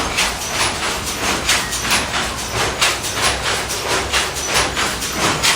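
Silk-weaving loom running, clattering in a steady rhythm of about three to four sharp knocks a second.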